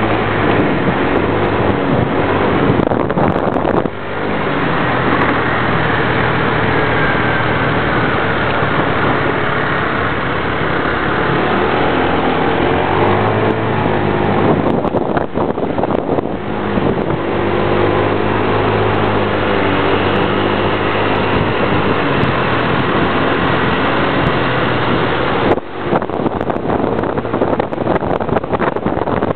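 Motor scooter engine running on the move, its pitch rising and falling with speed, under a steady rush of road noise.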